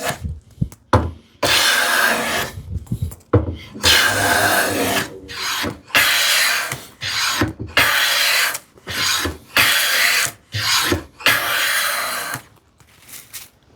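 Veritas low-angle hand plane taking repeated full-length shavings off poplar, each stroke a hiss lasting about a second, with short pauses between strokes. The plane is set for a deeper cut and is cutting cleanly.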